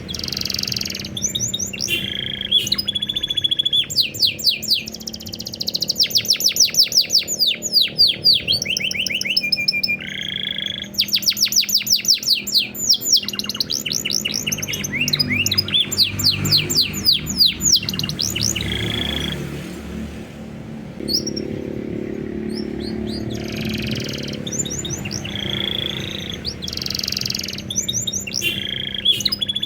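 Domestic canary singing a long, varied song: rapid trills of repeated falling notes alternating with held whistled notes, with a few short pauses.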